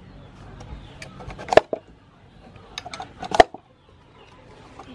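Knife chopping down through a peeled green papaya onto a wooden chopping board: two sharp knocks about two seconds apart, with a few lighter taps just before the second.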